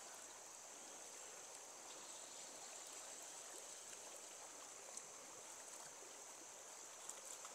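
Faint, steady rush of flowing stream water.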